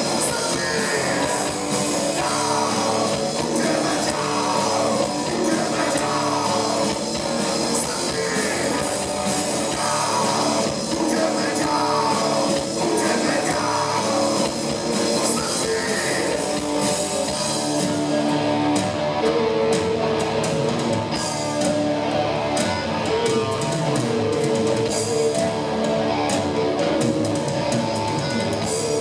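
Live rock band playing: electric guitars, bass guitar and drum kit, with a sung vocal over roughly the first half. About 18 seconds in, the cymbals drop back and the guitars and bass carry on.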